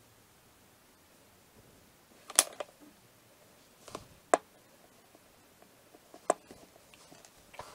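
Handling sounds from modelling a play-dough car on a tabletop: a handful of short, sharp clicks and taps spaced a second or two apart in a quiet room.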